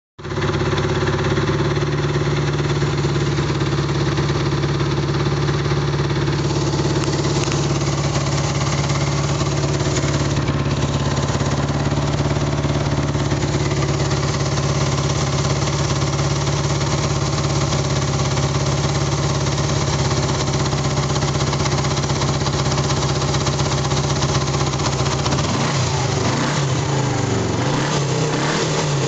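1983 Yamaha XS250's parallel-twin engine idling steadily, a bit rattly at idle, then revved in a few short blips near the end.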